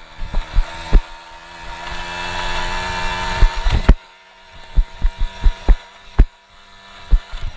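Polini-tuned Piaggio Ciao moped's small two-stroke engine revving up under throttle for about two seconds, then dropping back to a low hum about four seconds in. Sharp knocks and thumps come throughout as the moped jolts over rough ground, and they are the loudest sounds.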